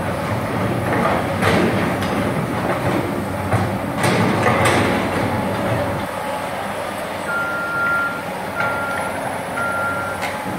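Komatsu PC200 hydraulic excavator running and working, a steady mechanical din with a few sharp knocks. About two-thirds of the way in, a high warning alarm starts beeping, one longer beep and then shorter ones.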